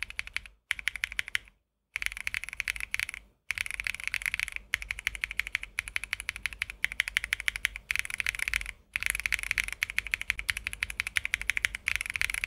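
Fast typing on a mechanical keyboard fitted with Cherry Powder linear switches, many keystrokes a second, in runs of a few seconds broken by brief pauses. These switches are sold as linear switches with a creamy sound.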